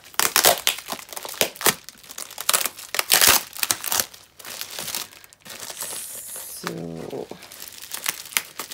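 Paper and plastic packaging crinkling and rustling in irregular clusters as items are unwrapped and handled, loudest around three seconds in. A brief low pitched hum-like sound comes about seven seconds in.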